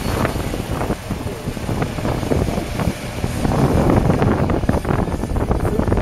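Kubota M7151 tractor's 6.1-litre four-cylinder diesel engine running steadily as it tows a Kubota BF3225 round baler across the field.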